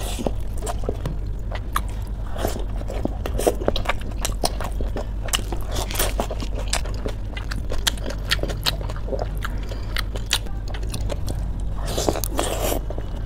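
Crisp pani puri shells being cracked open with the fingers and crunched and chewed, in a quick run of short crisp cracks, with a louder burst of crunching near the end. A steady low hum runs underneath.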